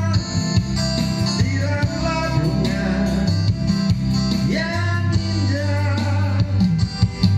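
A pop ballad playing, with guitar and a steady bass line.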